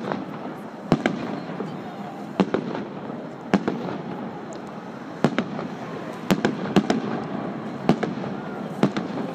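Fireworks display: about eight sharp bangs of aerial shells bursting at irregular intervals, roughly one every second, over a continuous background of crowd voices.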